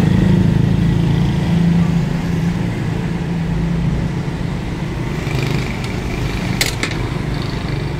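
Steady low engine rumble amid street traffic noise, with two sharp clicks close together about two-thirds of the way through.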